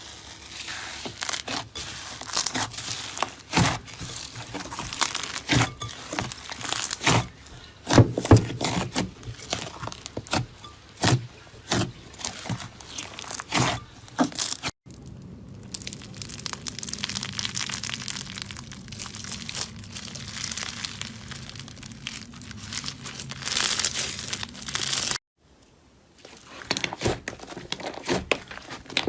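Slime being squeezed and poked by hand, giving a dense run of sharp sticky clicks and crackles. About halfway the sound cuts abruptly to a softer, steadier crackling, then drops out briefly near the end before the clicking resumes.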